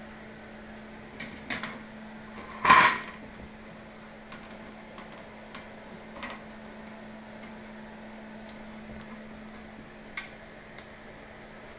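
Scattered light clicks and knocks of tools and a plastic part being handled at a work surface, with one louder clatter just under three seconds in, over a steady low hum.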